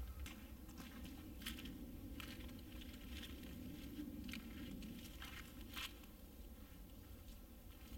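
Faint rustling on the forest floor, with a few scattered sharp cracks of twigs and litter underfoot and under the hands, as someone walks and gathers material from the ground.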